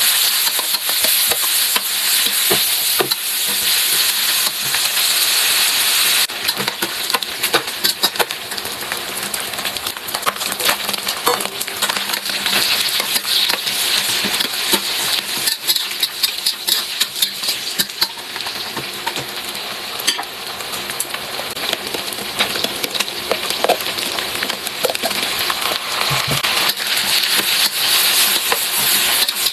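Food frying in a pan, a steady loud sizzle crackling with many small pops and clicks as it is stirred; the hiss eases a little about six seconds in.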